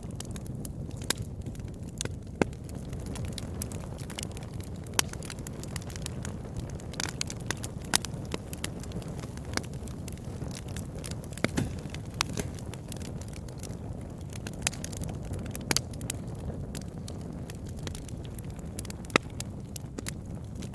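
Campfire burning: a steady low rumble of the flames with sharp, irregular crackles and pops.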